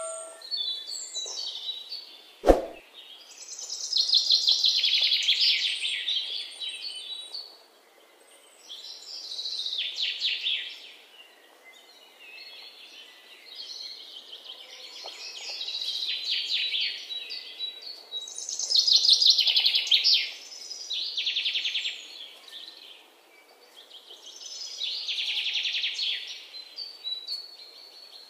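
Songbird singing outdoors: repeated high-pitched phrases of rapid trilled notes, each about two seconds long and a few seconds apart. A single sharp click comes about two and a half seconds in.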